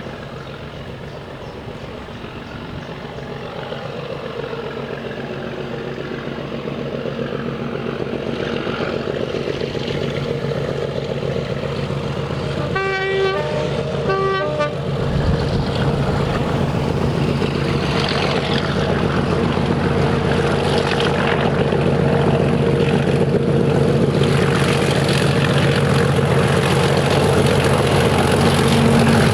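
Heritage mainline diesel locomotive approaching under power, its engine note growing louder throughout. About halfway through it gives two short horn blasts, then the engine sound gets louder and harder as it draws near.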